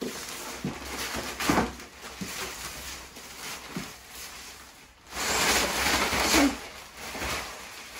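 Large shower curtain rustling as it is lifted off the floor and handled, louder for a second or so about five seconds in as it is bunched together.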